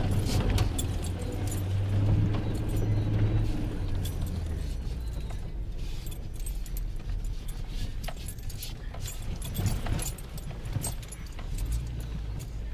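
Vehicle engine running with a low, steady hum, louder for the first few seconds, under irregular metallic jingling and rattling clicks.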